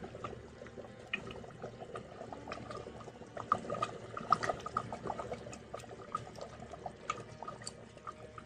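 Mutton curry gravy simmering in an open aluminium pot, bubbling with faint, irregular small pops.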